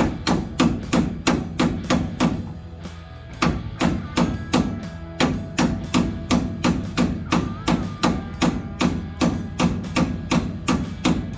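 Repeated hammer blows, about three or four a second with a short pause, trying to drive out a leaf spring shackle bolt. Background music plays under it.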